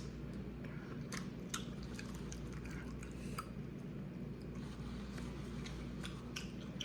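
A person chewing food close to the microphone, with scattered soft mouth clicks, over a steady low hum.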